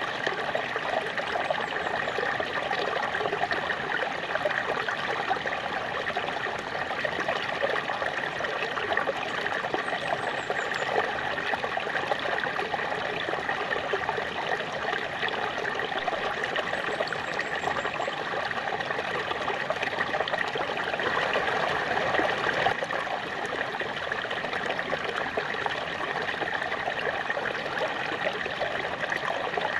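Small waterfall: water splashing and trickling steadily, swelling a little about two-thirds of the way through.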